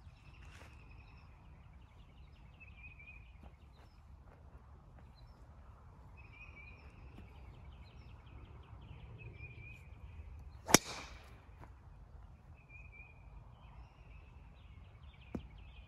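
A single sharp crack of a golf club striking a ball, about eleven seconds in, with a fainter click near the end. Birds chirp faintly and repeatedly in the background.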